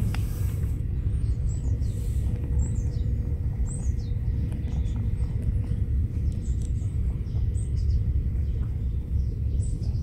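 Outdoor ambience: a steady low rumble with birds chirping in short, scattered calls throughout.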